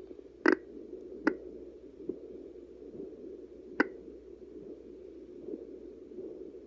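Handheld fetal doppler's speaker giving its steady whooshing sound as the probe searches for the baby's heartbeat. Three sharp clicks cut through it, about half a second in, just past a second, and near four seconds.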